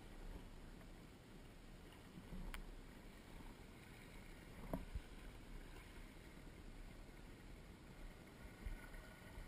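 Faint water and movement sounds of a kayak on the water, with a few short sharp knocks about two and a half seconds in, near the middle and near the end.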